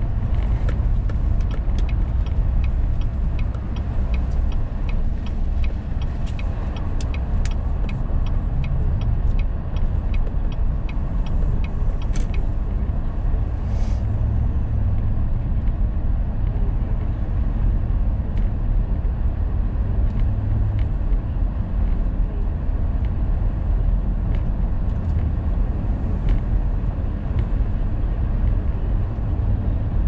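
Car driving on a snowy, slushy road, heard from inside the cabin: a steady low rumble of engine and tyre noise. A run of light, evenly spaced clicks sounds during the first dozen seconds.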